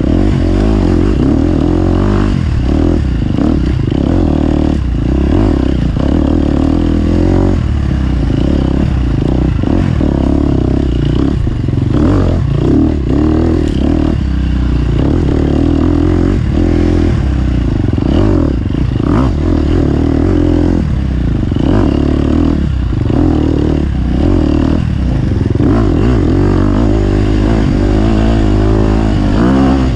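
Loud motorcycle engine run hard through a race lap, its revs rising and dropping every second or two as the throttle is opened and closed.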